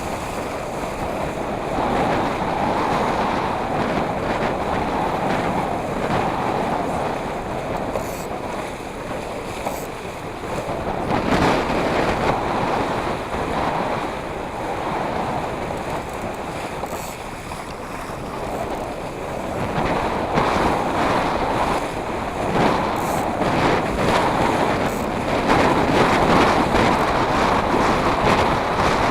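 Wind buffeting the microphone over rushing sea water, a steady noise that swells and eases every few seconds.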